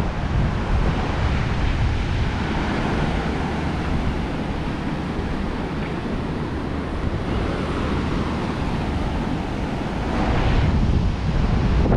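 Ocean surf washing on a beach under heavy wind rumble on the microphone; a wave breaks louder about ten seconds in.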